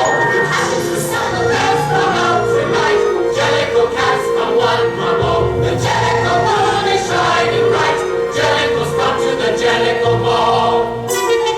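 A chorus singing show music with instrumental accompaniment and a steady beat, over a sustained held note.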